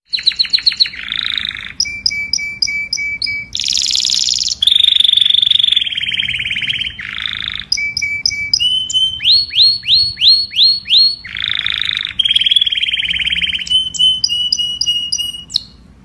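Domestic canary singing a long, varied song: fast trills and runs of quickly repeated notes, buzzy rolls, and a run of rising whistled sweeps about two-thirds of the way through. The song stops just before the end.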